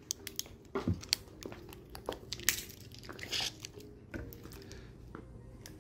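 Plastic tamper seal being torn and peeled off a bottle cap, with scattered crinkles, small snaps and clicks of handled plastic.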